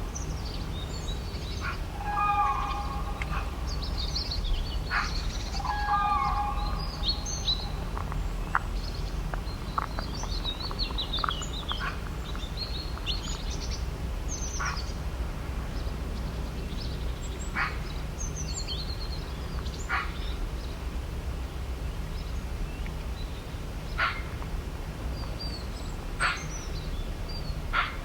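A morning chorus of songbirds chirping and trilling. In the first seven seconds a larger bird gives a harsh call three times, and short sharp calls follow every couple of seconds, all over a steady low rumble.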